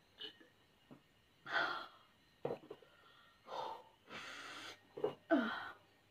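A woman breathing sharply in and out through her mouth, wheezy gasps from the chili burn of extra-spicy Samyang noodles, between sips of milk. There are a couple of short clicks, and near the end a short falling voice sound.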